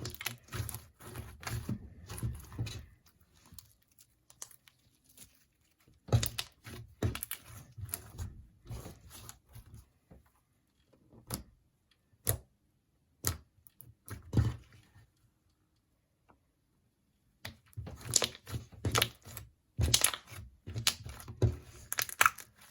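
Slime being squished, stretched and poked by hand, giving clusters of wet clicks and crackling pops in several separate bouts with dead-silent cuts between them.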